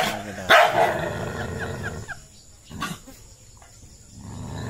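A dog barking and snarling aggressively at its own reflection in a mirror, which it takes for a rival dog: sharp barks at the start, about half a second in and near three seconds, with rough snarling in between and a low sustained sound rising near the end.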